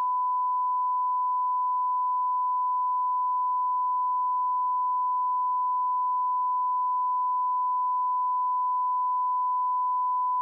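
Broadcast line-up tone: a steady 1 kHz sine test tone held at one level alongside colour bars, cutting off abruptly near the end.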